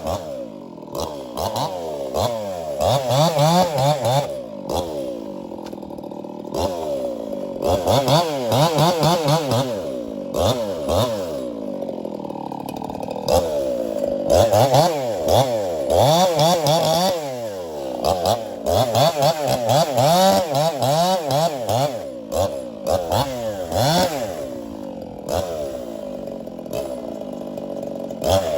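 Ported Echo CS-4910 two-stroke chainsaw bucking firewood logs. The engine revs up and drops back again and again, with held full-throttle stretches between.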